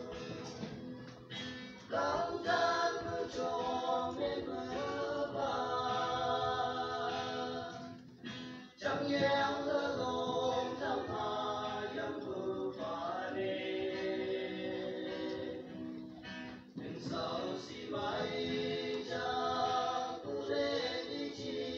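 Choir singing in several voices, in long phrases with brief breaks about eight and sixteen seconds in.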